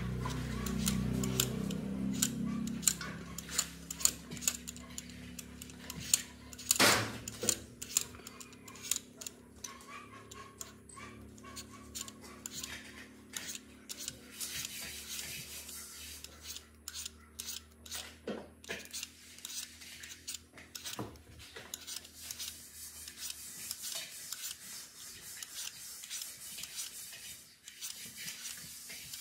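Scraping and rubbing during food preparation, with scattered clinks and knocks of kitchen utensils and one louder knock about seven seconds in.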